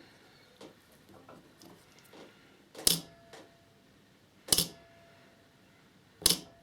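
Battery spot welder firing three welds about a second and a half apart, each a sharp loud crack, re-attaching a nickel strip tab to an 18650 lithium-ion cell that had not welded properly. A faint steady tone sounds between the welds.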